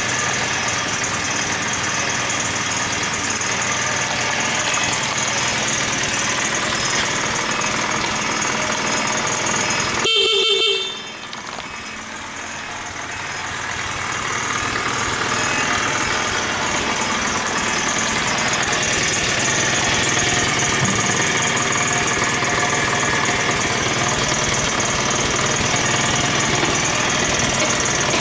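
Honda Monkey mini bike's small single-cylinder engine idling steadily, with one short beep of its horn about ten seconds in.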